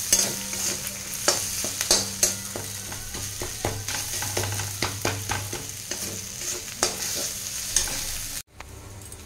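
Onions and spices sizzling in oil in a metal kadai while a flat metal spatula stirs and scrapes them, clinking against the pan every half second or so. The sizzle drops suddenly near the end.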